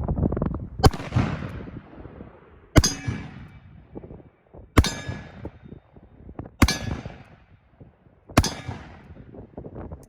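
Five shots from a Standard Manufacturing Single Action Army .45 Colt revolver loaded with 35-grain Goex black powder cartridges, fired one at a time about two seconds apart, emptying the five loaded chambers. Each shot has a ringing tail.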